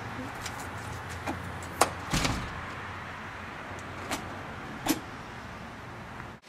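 Glass storm door being closed: a thump about two seconds in and several sharp clicks of handle and latch, over a steady low background rumble.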